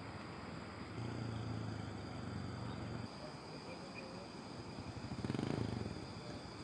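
Wind buffeting the phone's microphone: a low rumble that swells in two gusts, one about a second in and a stronger one near the end.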